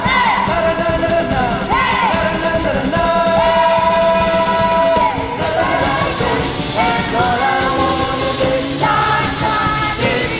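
A live worship band plays while a lead singer holds long sung notes. About halfway through, the band comes in with a busier, brighter beat.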